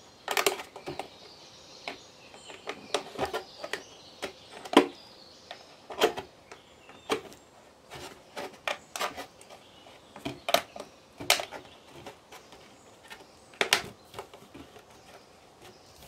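Irregular clicks and crackles of a thin plastic 2-litre Coca-Cola bottle being flexed and handled while a clear silicone tube is worked onto the cut edge of its window.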